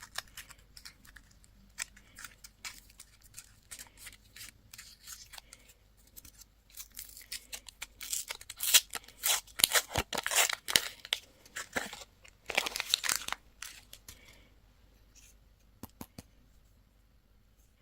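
Candy and toy packaging handled and opened: scattered light clicks and taps, then several seconds of dense crinkling and tearing about halfway through.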